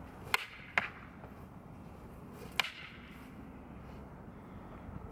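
Short fighting staffs striking with sharp clacks: two hits about half a second apart, then one more about two and a half seconds in.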